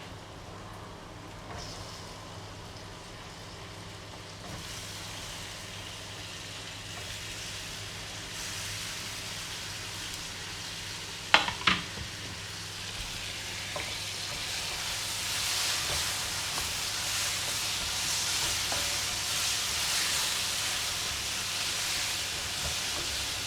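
Spiced masala frying and sizzling in a pan. The sizzle grows louder from about four seconds in and is strongest in the second half. About halfway through there are a couple of sharp clinks of a utensil against the pan.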